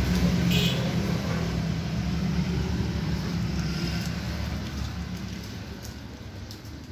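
Motor vehicle engine running with a steady low hum, fading gradually over several seconds.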